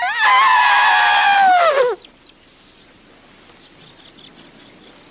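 Elephant trumpeting: one high, loud call of about two seconds that holds its pitch and then slides down as it ends.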